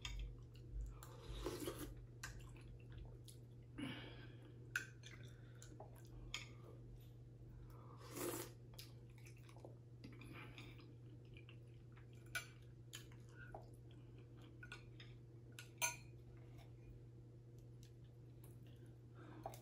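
Faint sounds of someone eating soup: a spoon clicking now and then against the bowl, with soft chewing, over a low steady hum.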